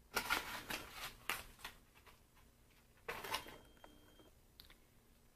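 Scratchy rustling and rubbing noise close to the microphone in two bursts, the first lasting more than a second and a shorter one about three seconds in.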